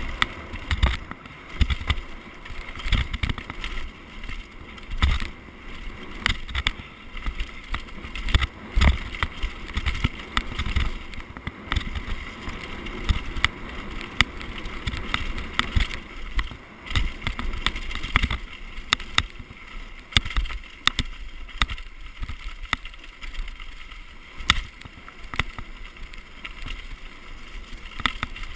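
Downhill mountain bike ridden fast over a rough, leaf-covered dirt trail: a steady rush of tyre and wind noise broken by frequent rattles and knocks as the bike hits bumps and roots. The knocks thin out and the noise eases about two-thirds of the way through.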